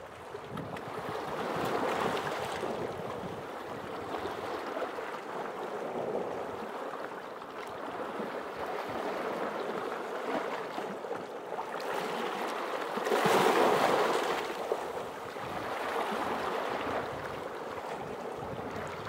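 Small sea waves washing and lapping, the sound of the water swelling and ebbing every few seconds, loudest about two-thirds of the way through.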